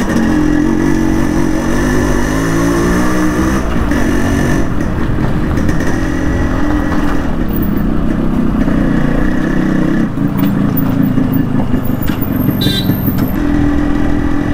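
Yamaha RX100's 98 cc air-cooled two-stroke single-cylinder engine running as the motorcycle is ridden, its pitch rising and falling with the throttle.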